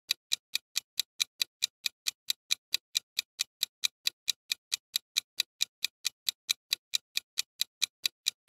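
Countdown-timer clock-tick sound effect: quick, even, sharp ticks, about five a second, at a steady level.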